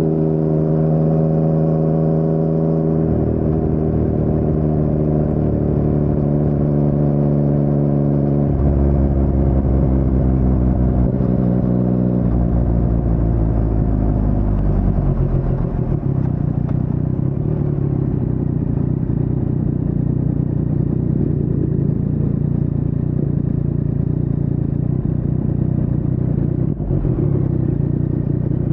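A 2019 Yamaha MT-09's inline three-cylinder engine running through an Akrapovic carbon full-system exhaust with no dB killer. It holds steady revs, then drops in pitch in three steps, about 3, 8 and 12 seconds in, and settles to a low, rougher running at low speed.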